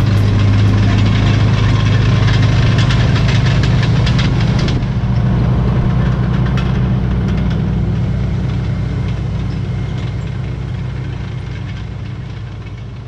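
M18 Hellcat's rebuilt nine-cylinder radial engine running as the tank drives by, a steady deep drone with rattling over the first five seconds. The sound then gradually fades away toward the end.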